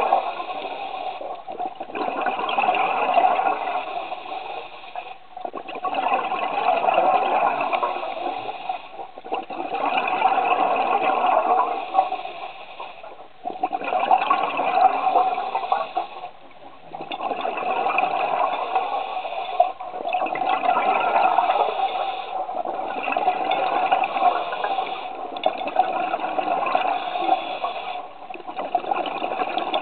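A scuba diver breathing through a regulator underwater: a rushing, bubbling noise that swells and fades in a repeating cycle about every three to four seconds as breaths are drawn and bubbles are exhaled.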